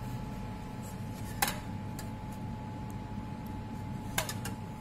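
Two light clinks of a steel slotted spoon against a small stainless-steel pan as sugar syrup is spooned out, one about a second and a half in and one near the end with a short ring, over a steady low background hum.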